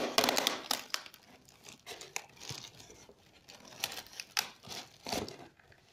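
Clear plastic wrap and a woven basket pouch crinkling and rustling as hands handle them inside a cardboard box. The crackling is loudest in the first second, then breaks into scattered rustles, with one louder rustle near the end.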